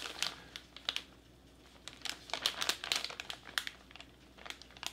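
Plastic flameless ration-heater pouch crinkling as it is held and squeezed in the hands, in irregular spells of crackles with short pauses between them.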